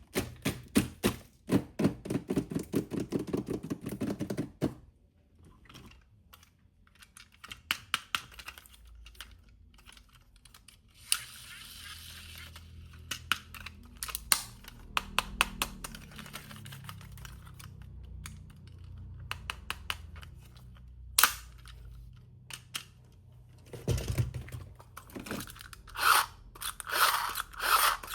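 Hands unpacking and handling plastic toy pieces and their packaging: a quick run of clicks and rattles at first, then rustling and crinkling of packaging from about eleven seconds in, with scattered sharp knocks of plastic parts.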